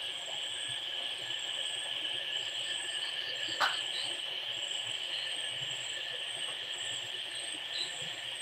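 Steady high-pitched chirring of a night insect chorus, with a higher trill that pulses on and off; a single sharp click sounds about three and a half seconds in.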